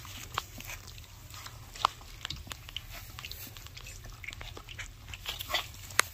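Basset Hound puppies eating wet puppy mush from a stainless steel saucer pan: wet lapping, smacking and chewing, with a few sharp clicks, the loudest a little under two seconds in and near the end.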